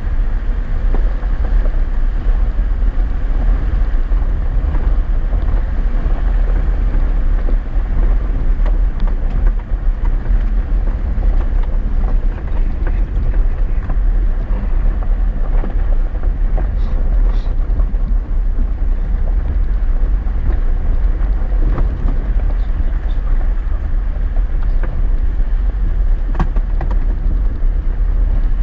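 Chevy Silverado 4x4 pickup driving over a rough, rocky dirt road, heard from inside the cab: a steady low rumble of engine and tyres, with a few sharp knocks and rattles.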